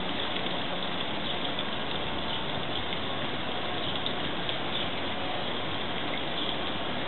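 Steady rush of water from a backyard fountain.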